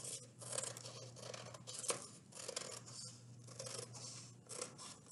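Scissors cutting a sheet of paper: a run of quick snips, about two a second, with one sharper click about two seconds in.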